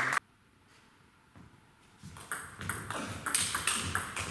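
About two seconds of near silence, then a table tennis ball clicking sharply off the bats and the table in quick succession, about three hits a second.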